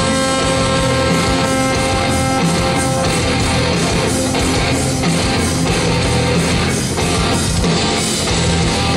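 Rock band playing live with no vocals: loud electric guitars over bass and drums.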